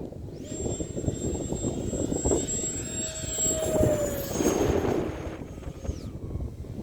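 E-flite Habu STS electric ducted-fan RC jet making a fast pass, its high fan whine coming in about half a second in and dropping slightly in pitch as it goes by, then fading out near the end. Wind rumbles on the microphone throughout.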